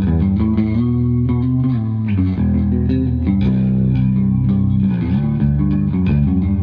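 Yamaha electric bass played fingerstyle: held low notes that change every second or so. This is the play test of the restored bass, just restrung and tuned, with a handmade wooden nut.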